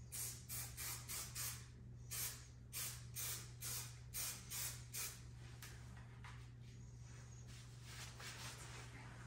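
Aerosol can of 3M Super 77 spray adhesive hissing in about a dozen short sprays over the first five seconds, then a few fainter ones, as it coats a paper template and plywood.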